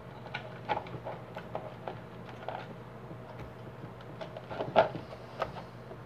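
Scattered small clicks and knocks of a fan's plastic parts and wiring being handled and fitted together, with one louder knock near the end, over a steady low hum.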